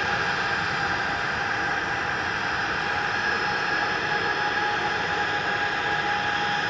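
Boeing 767-330ER's jet engines at takeoff power as the airliner climbs away: a steady rushing roar with a steady whine on top.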